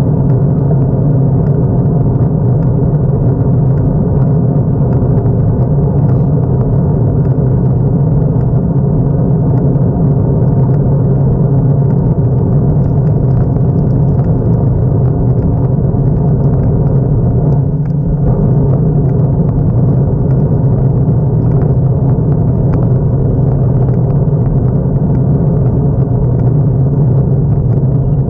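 Vehicle engine running at a steady cruising speed, a continuous low drone mixed with road and wind noise, easing briefly about two-thirds of the way through.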